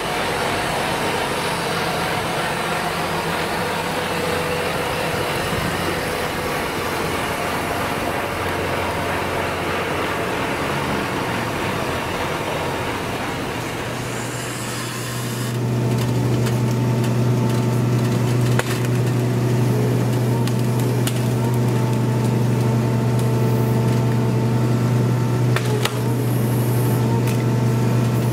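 Heavy tractor and machinery engines running steadily; about fifteen seconds in, the sound changes to a louder, steady low engine hum with a few light knocks.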